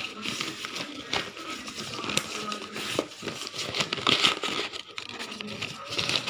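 Cardboard parcel box and its wrapping being handled and opened by hand: irregular rustling, crinkling and scraping.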